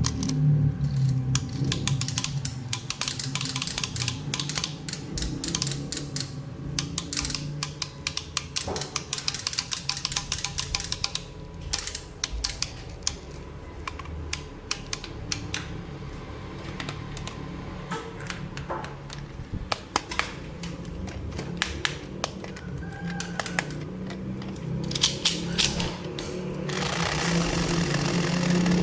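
Many quick clicks and taps of plastic toy pieces being handled and fitted together, over soft background music. A steady hiss comes in near the end.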